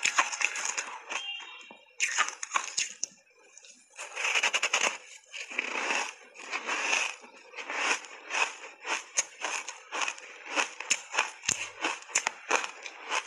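Crunching and crackling of block ice being bitten and chewed, the ice thickly coated in matcha tea powder, picked up close on a clip-on microphone: many sharp cracks in quick runs, with short pauses between bites.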